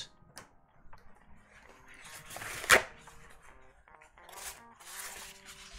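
Faint background music, with soft rustling from handling things on the desk and one sharp click a little before the middle.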